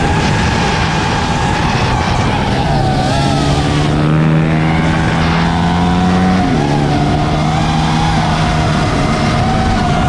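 Several small motorbike and scooter engines racing at once, their pitch rising and falling with the revs; one drops sharply about six and a half seconds in, as when the throttle is closed or the bike shifts gear.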